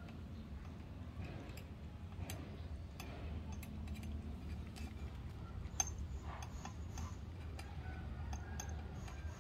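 Cats eating minced raw salmon from stainless steel bowls: irregular small clicks and smacks of chewing and of teeth and muzzles knocking the metal bowls, a sharper click about six seconds in, over a low steady hum.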